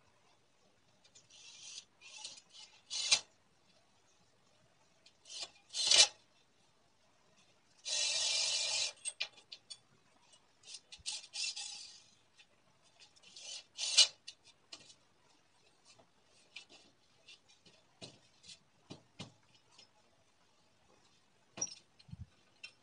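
Cordless drill running in short bursts of a second or so as it works into the wood of a clamped chair seat, with one steadier run about eight seconds in. Through the last third, scattered clicks and knocks of clamps and wood being handled.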